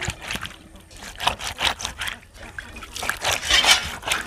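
Small fish being scrubbed by hand against a wet, rough concrete slab to clean them, a run of irregular wet rubbing and scraping strokes.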